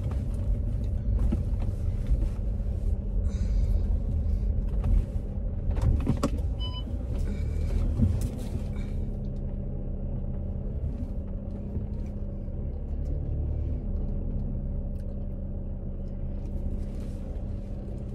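Car engine and road rumble heard from inside the cabin while parking. It is rougher and louder for the first half, then settles into a quieter, steady hum from about nine seconds in.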